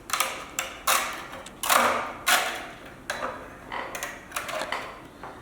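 Plastic face mask being pried off an LED display module: a series of irregular plastic clicks and snaps, the loudest around two seconds in.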